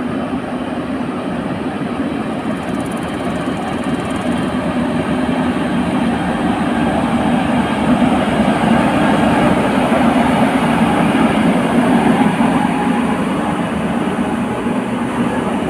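Indian Railways WAP-7 electric locomotive and its passenger coaches rolling past: a steady rumble of wheels on rail that grows louder as the coaches go by, loudest about two-thirds of the way through.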